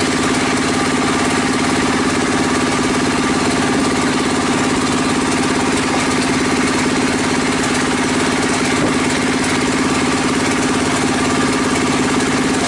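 Table circular saw rig running steadily with a constant, even hum while a long timber plank is ripped lengthwise through it.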